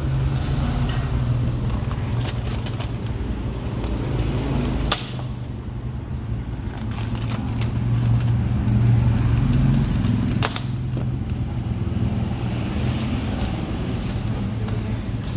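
Steady low rumble of engine and traffic noise, with light clicks and two sharp knocks, about five seconds apart.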